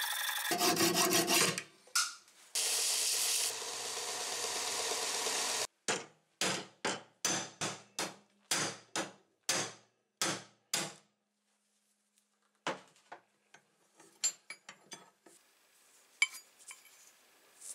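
Hacksaw cutting through the steel pivot rivet of old rusted Unior 200 pincers, a continuous rasping stroke noise. This gives way to about fifteen quick hammer blows on a punch, roughly three a second, driving the rivet out, then a few light metal clinks as the freed halves are handled.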